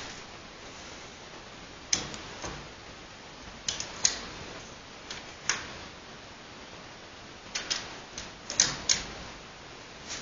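Scattered sharp clicks and light knocks, irregular and about a dozen in all, with the loudest near the middle and near the end, over a steady hiss.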